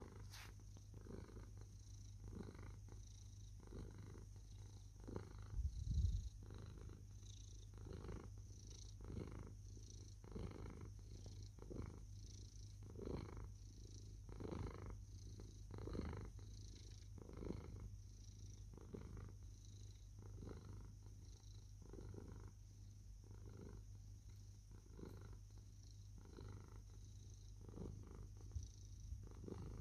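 Domestic cat purring close to the microphone in even, rhythmic pulses, about three every two seconds. A brief low bump about six seconds in.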